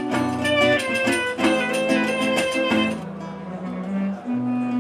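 Live Middle Eastern-style acoustic trio: a clarinet melody over a classical guitar, with a riq's jingles keeping the rhythm. About three seconds in the jingles drop out and the music thins to guitar and clarinet, quieter.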